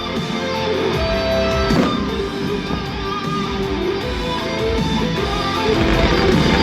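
Music with strummed guitar playing steadily, with one sharp crack about two seconds in.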